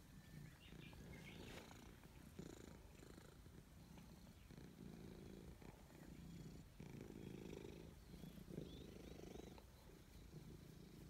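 Grey domestic cat purring while it is stroked on the head and back, a low rumble pulsing in waves about a second long: a sign of contentment.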